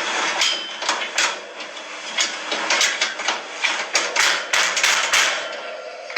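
A series of about fifteen irregular sharp knocks or taps, clustered more densely in the second half, over a steady background hiss.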